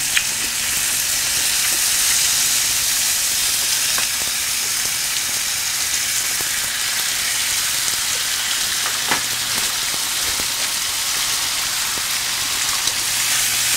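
Pork belly and marinated meat sizzling steadily on a hot round grill pan, with a few faint clicks.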